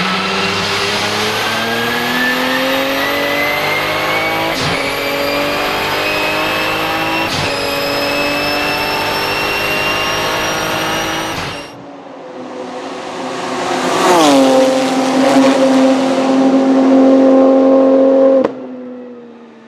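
Twin-turbo 3.9-litre flat-six of a Porsche 997 GT2 RSR accelerating hard with a high turbo whistle rising in pitch, broken by two quick upshifts about five and seven and a half seconds in. The sound cuts away sharply. It returns with the engine falling in pitch and then running steadily until it stops suddenly near the end.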